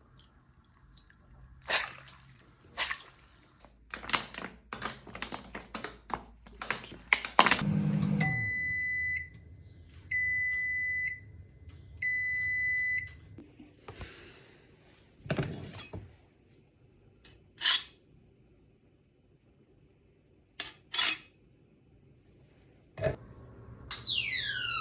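A string of sharp clicks and knocks, then three long electronic beeps about a second apart over a low hum, a few more sharp clicks, and near the end a whistling tone that slides down in pitch.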